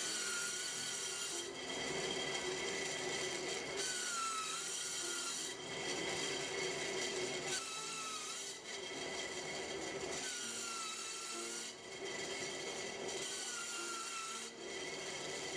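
Bench bandsaw running with a blade whose teeth have been ground off to a razor-sharp edge, slicing through folded cotton rag in repeated passes about every one to two seconds, each with a faint wavering whine.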